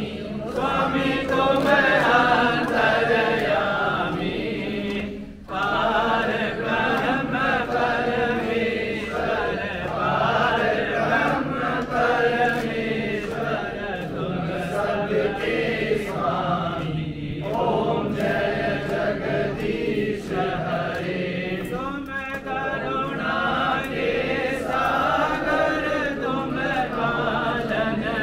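A crowd singing a Hindu aarti hymn together in unison during the lamp-waving rite, the singing carrying on line after line with brief breaks about five seconds in and again near the middle.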